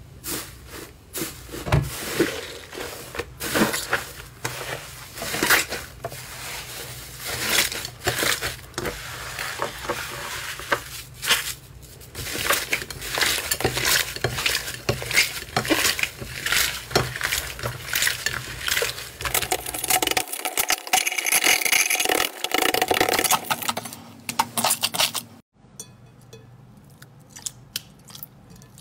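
Hands pressing and kneading foamy, crumbly slime, giving dense crackling and popping clicks. About 25 seconds in it drops to quieter, sparser clicks of a softer slime being pressed.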